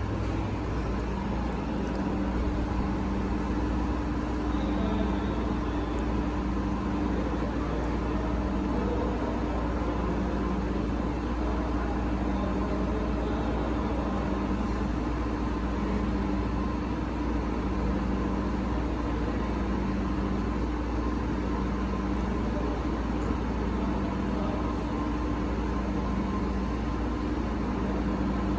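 Steady low machinery hum with a few held, unchanging tones and a deep rumble underneath: the constant drone of an enclosed parking garage.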